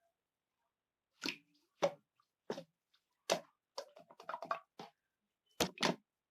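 Honey slime being squeezed and pressed by hand, giving wet, sticky pops and clicks: a few single pops, a quick run of them in the middle, and two loud ones near the end.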